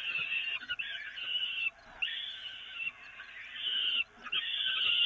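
Peregrine falcon chicks begging: a run of long, harsh, wheezy calls, about five of them, each near a second long with short breaks between, while being fed. Faint scratchy ticks sound underneath.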